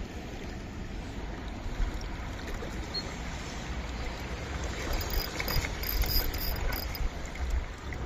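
Shallow stream running over stones, with a steady low rumble on the microphone. A run of faint high clicks comes about five to seven seconds in.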